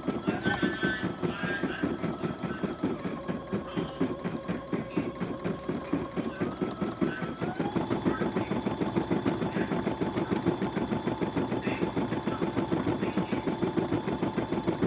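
Brother embroidery machine stitching out a design: a rapid, even chatter of needle strokes over the motor's whine, which shifts to a new pitch a couple of times.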